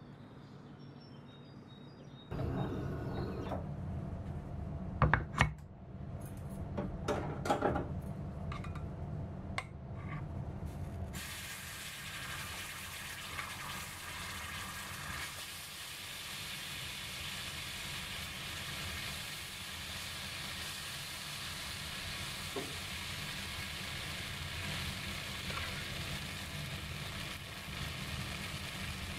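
Chocolate sauce and a brownie sizzling on a very hot cast-iron sizzler plate: a steady hiss that starts suddenly about eleven seconds in and carries on. Before that there is a low rumble with a few sharp knocks and clinks.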